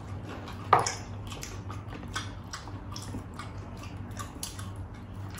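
Close-up eating sounds from two people eating with their hands: a steady string of short, wet chewing and lip-smacking clicks, with one louder smack under a second in.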